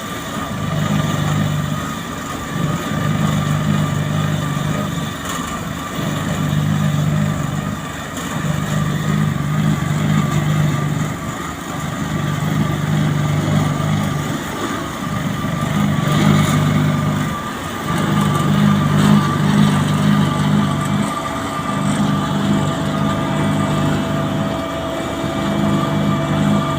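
Asphalt paver's diesel engine running while it lays hot asphalt, its low hum pulsing on and off roughly every two seconds under a steady high whine.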